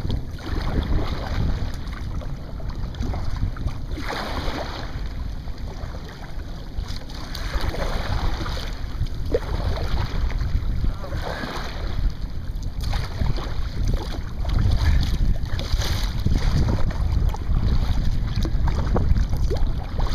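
Wind buffeting the microphone with a steady low rumble, while choppy sea water splashes and laps against a kayak every few seconds.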